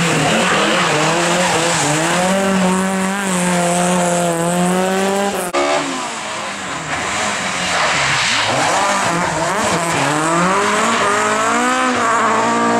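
Rally car engine revving hard on a stage, its pitch climbing and dropping with gear changes. The sound breaks off sharply about five and a half seconds in, falls lower for a few seconds, then an engine climbs through the revs again.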